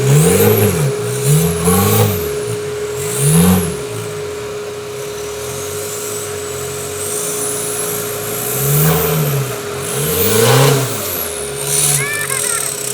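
Off-road 4x4's engine revved in repeated short blips, its pitch rising and falling about six times, with a steady whine underneath.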